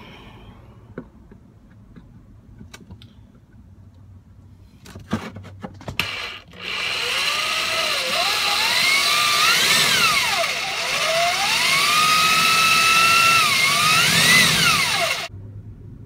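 Handheld cordless drill boring through a vehicle's rusty sheet-metal floor pan. After a few clicks and knocks while the bit is set in place, the motor starts about seven seconds in and runs for about eight seconds, its whine rising and falling as the trigger is squeezed and eased and the bit bites, then cuts off sharply.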